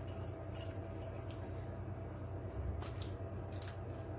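Chopped almond pieces clicking and rustling in a small stainless steel bowl and between the hands as a ball of marzipan is pressed and rolled in them. The light ticks come thickest in the first second and a half, with a few more later, over a steady low hum.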